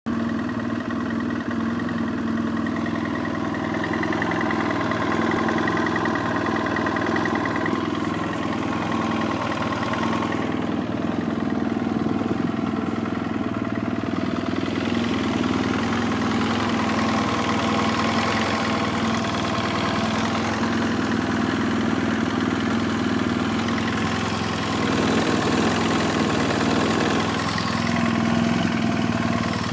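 2007 BMW F800S parallel-twin engine idling hot, with the knock of piston slap in its running.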